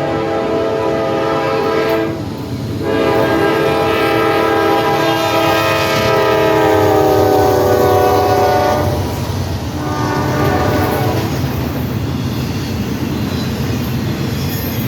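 Norfolk Southern freight locomotives sounding a multi-chime air horn: a blast broken briefly about two seconds in, then a long blast whose pitch drops as the locomotives pass, and a shorter blast around ten seconds in. After that the train rolls by with a steady rumble and clacking wheels.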